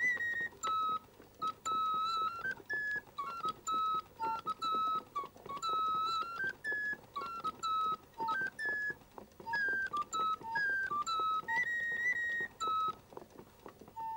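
Instrumental background music: a quick melody of short, high notes, several a second, each sharply struck.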